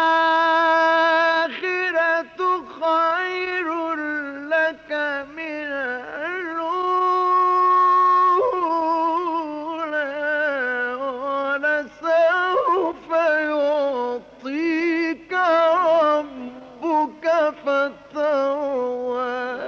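A male Qur'an reciter's solo voice in melodic mujawwad recitation: one long held note, then a run of ornamented, melismatic phrases that rise and fall, with short breaks for breath, on an old 1958 tape recording.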